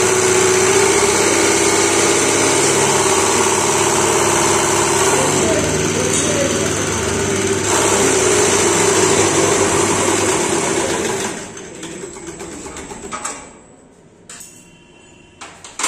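Diesel inline injection pump driven on a Sehmi test bench, running steadily with a high hiss. About eleven seconds in it winds down and stops, followed by a few sharp clicks and a louder knock near the end.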